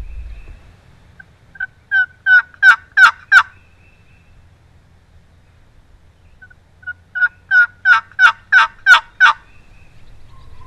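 Wooden turkey box call yelping: two runs of about eight yelps each, a few seconds apart, each run building in loudness.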